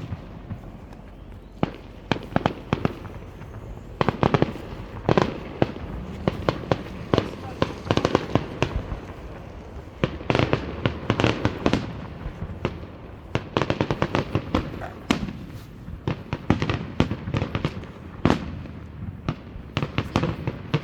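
Fireworks going off: a run of sharp bangs and crackles, some single and some in quick clusters, with the densest volleys about halfway through and again a few seconds before the end.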